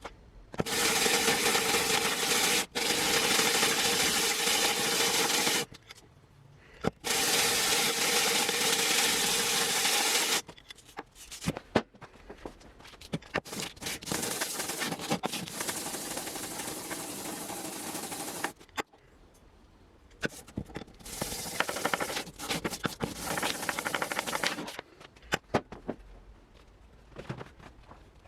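A power tool running in two long bursts, about five and three seconds, with a steady whine under a rushing noise. Then a stretch of irregular scraping and rubbing broken by sharp clicks.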